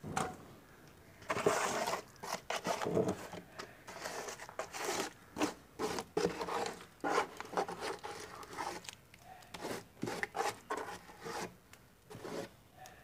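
Wet red soil being scraped and tipped out of a plastic crate into a plastic tub: a run of irregular scrapes, rubs and soft knocks of plastic and mud.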